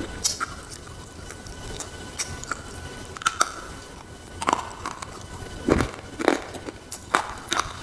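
A white slate bar bitten and chewed up close: a series of sharp, dry crunches and snaps, loudest in the second half.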